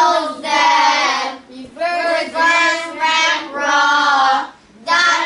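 Children's voices chanting Arabic letter names in a sing-song, in about five drawn-out phrases with a short pause near the end: recitation of the alphabet in unison.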